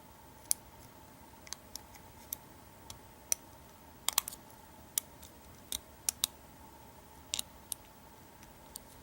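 Light metallic clicks of a steel hook pick lifting the pin stacks of an American 700-series padlock under tension from a pry-bar tension wrench, during single-pin picking. More than a dozen irregular clicks, a few in quick clusters.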